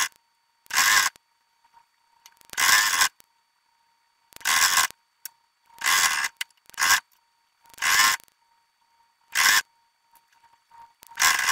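Sewing machine stitching in short runs of about half a second each, stopping and starting roughly eight times, the whole thing played back sped up.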